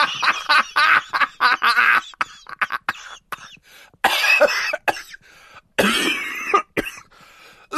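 A woman coughing and making short throaty noises: a quick cluster of bursts at first, then two longer ones in the second half.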